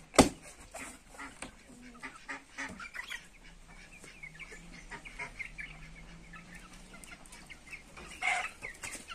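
Chickens clucking in many short, quiet calls, with a louder call about eight seconds in. A single sharp knock just after the start, the loudest sound, as the wooden board over the coop doorway is moved.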